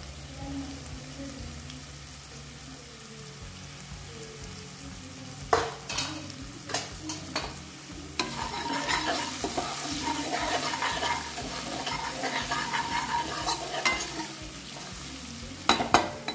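Chopped ginger, asafoetida and ground spices frying in hot mustard oil in a kadhai, a steady sizzle that grows louder about eight seconds in as the masala is stirred. A spoon clicks and scrapes against the pan several times, in a cluster around six to seven seconds and again near the end.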